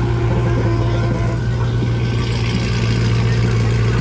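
Car engine running, with a steady low drone.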